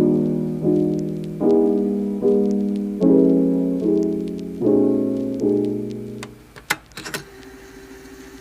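Background piano music: chords struck about once every second and fading, stopping about six seconds in, followed by a few sharp clicks.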